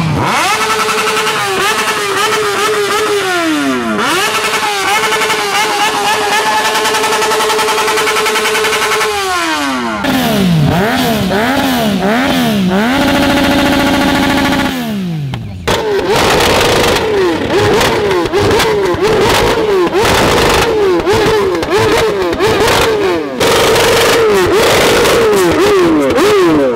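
Several motorcycles revved hard in turn while standing still, with quick throttle blips that rise and fall and spells of revs held high. The engine note changes abruptly about ten and fifteen seconds in as one bike gives way to the next. One of them is a Yamaha MT-09 triple breathing through an aftermarket Akrapovič exhaust.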